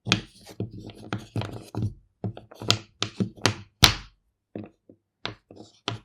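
A series of irregular hollow thunks and knocks, about a dozen sharp impacts in six seconds with short pauses between them.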